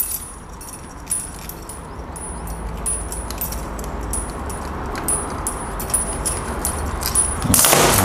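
A steel socket tool turning a 13 mm nut off a brush cutter's gear head: a run of small metallic clicks, about three a second, each with a faint high ring, then a louder metal clatter near the end.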